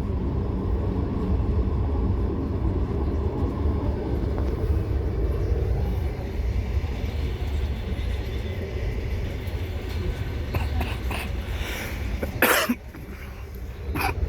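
Steady low rumble of a moving vehicle heard from on board, with a loud brief rushing burst about twelve seconds in and a shorter one near the end.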